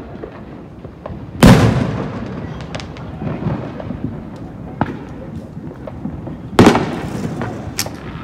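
Fireworks going off: two loud booms, about a second and a half and six and a half seconds in, each echoing away, with scattered smaller pops and crackles between them.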